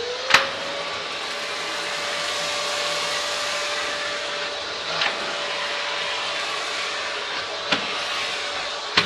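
Vacuum cleaner (hoover) running: the motor whines up to speed in the first second, then runs steadily with a loud rushing suction noise. A few sharp clicks come through, around one second in, at about five seconds, near eight seconds and at the end.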